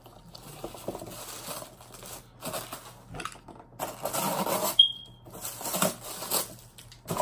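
Plastic wrapping on a tripod box crinkling and rustling as it is cut and torn open with scissors, in uneven bursts. A short high beep-like tone sounds once about five seconds in.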